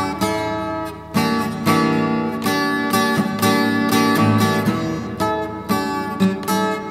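Background music led by acoustic guitar, strummed and plucked chords.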